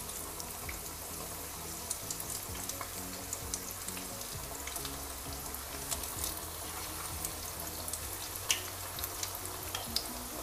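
Besan-battered chicken pakoras deep-frying in hot oil in a kadhai: a steady sizzle with many small crackles and a few louder pops.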